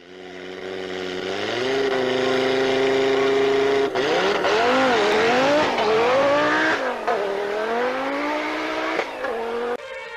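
Racing car engine revving. It fades in, climbs in pitch about a second and a half in and holds there, then revs up and down several times before easing off. Near the end it cuts off suddenly.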